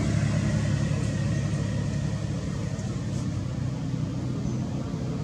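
A motor vehicle's engine running with a steady low drone that slowly fades.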